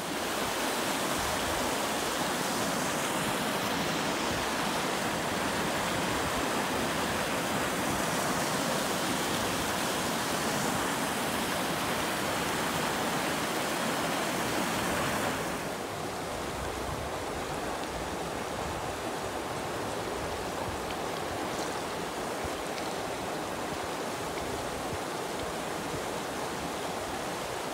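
Steady rushing noise with no distinct events. Halfway through it abruptly becomes a little quieter and duller.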